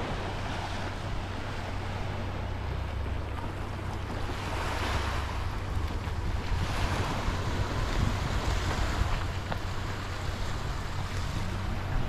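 Sea waves washing onto a beach, swelling and fading several times, with wind buffeting the microphone as a steady low rumble.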